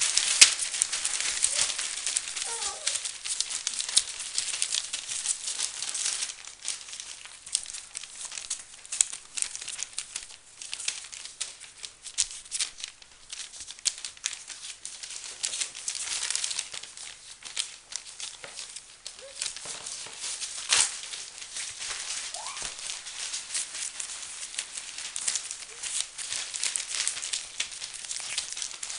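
Newspaper crinkling and rustling under the paws of a litter of five-week-old Samoyed puppies scampering over it, a constant dense crackle. A few short, faint puppy whimpers come through now and then.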